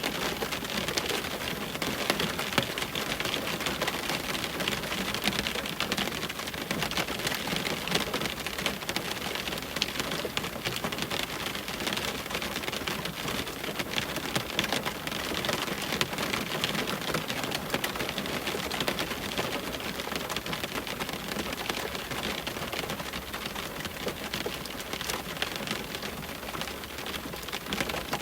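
Steady rain hitting a window pane, a dense hiss of water with many individual drop taps running through it.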